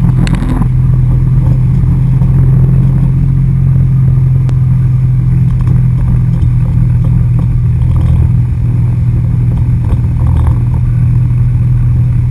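Wakeboard tow boat's engine running steadily at towing speed, a loud constant drone, with water rushing past the hull. A brief rustle of handling on the camera at the very start.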